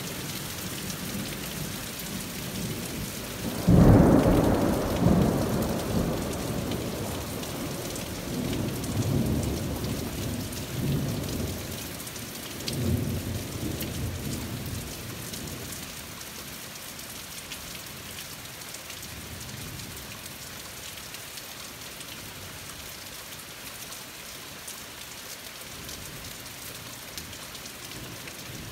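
Steady rain throughout, with a sudden thunderclap about four seconds in. The thunder then rolls on in several rumbling waves and dies away about halfway through, leaving the rain alone.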